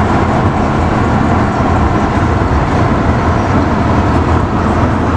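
Road noise inside a moving car's cabin while driving through a road tunnel: a loud, steady rumble with a hiss of tyres and surrounding traffic.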